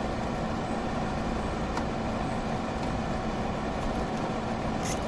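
Steady machine drone with a faint underlying hum, and a small click about two seconds in.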